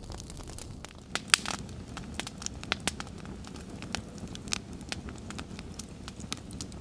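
Wood fire crackling: irregular sharp pops and snaps over a low steady rumble, with one louder snap about a second and a half in.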